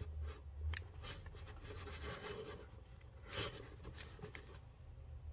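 Handling noise from small cardboard firework fountains being picked up, turned over and set down: scattered rubbing, rustling and light knocks, the most prominent a rustle about three and a half seconds in.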